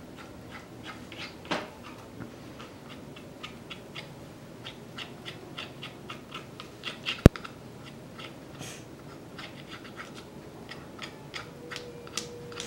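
Paintbrush dabbing and scratching glitter paint onto a wooden plaque: a run of small, irregular ticks, a few a second, with one sharp click about seven seconds in.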